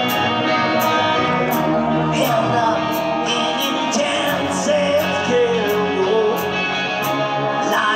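Live rock band playing, with singing and a high tick about every two-thirds of a second.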